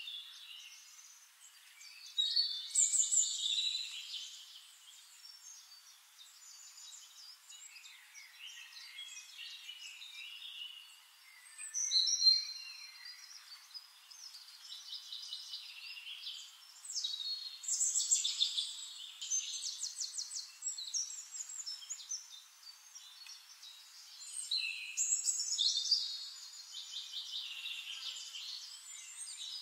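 Songbirds chirping and trilling in short, overlapping phrases, with louder bursts of song a few times.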